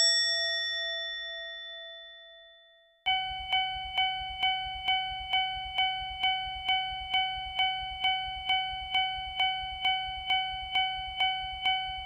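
Japanese railroad crossing warning bell striking steadily, about two dings a second. Before it starts, a bell-like tone rings out and fades over the first two seconds.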